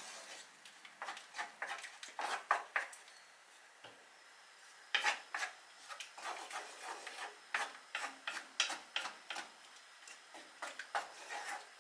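A utensil stirring and scraping beans in a pan, in irregular short strokes with a pause about three seconds in before the stirring resumes.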